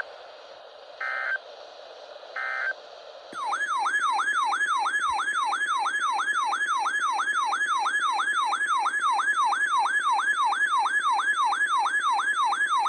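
Three short bursts of EAS digital data tones (the end-of-message code), then, about three seconds in, a loud electronic alert tone that sweeps up and down about three times a second.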